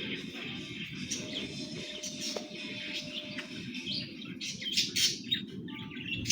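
Small birds chirping in short, high calls, coming thickest about four to five seconds in, over a steady low rumble.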